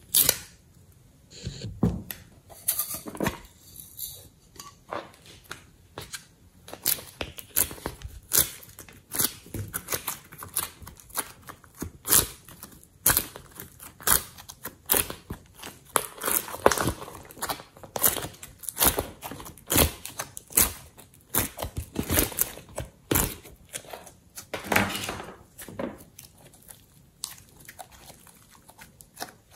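Hands squishing, pressing and stretching soft slime, giving an irregular run of short sticky clicks and crackles.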